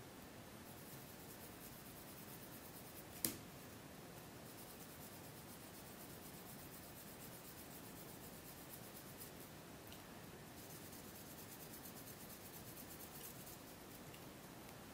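Faint, fine scratching and rubbing of a hand tool on leather, in three stretches, with one sharp click about three seconds in.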